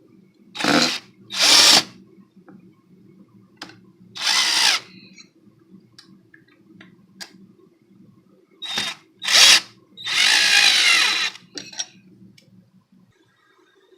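Power drill run in six short bursts, the last and longest lasting about a second and a half, over a faint steady low hum.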